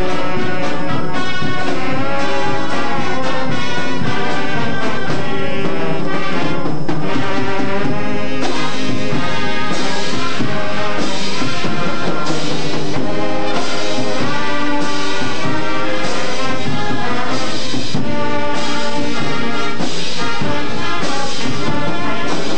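High school marching band playing a brass-led arrangement, with trombones and trumpets carrying the tune. Percussion hits come in about eight seconds in and keep a steady beat.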